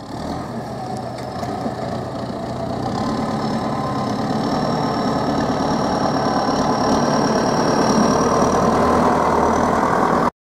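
Pronar MTZ-82 tractor's four-cylinder diesel engine running under load while it pulls a seed drill, growing louder as it comes closer, with a faint high whine over it from about three seconds in. The sound cuts off abruptly near the end.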